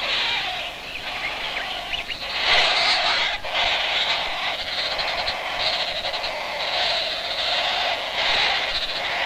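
Green woodpecker nestlings' begging calls: a continuous rasping buzz that swells and eases in waves about once a second.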